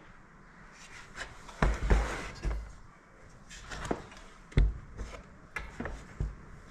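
Knocks, thumps and rubbing from the diesel heater unit being handled and turned over, with about seven separate sharp knocks spread through.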